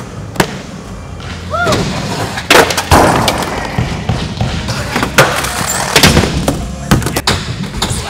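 Skateboard slams: sharp knocks and clatter of a skateboard and a falling skater hitting a concrete floor, several times over.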